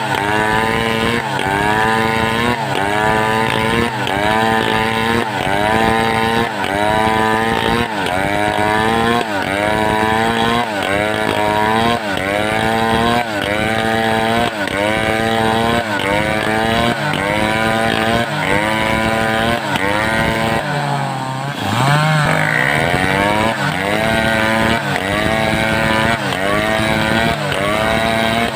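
Assembled two-stroke chainsaw cutting wood at high revs. The engine note sags and recovers roughly once a second as the chain bites. About twenty seconds in, the revs drop sharply and then climb back up.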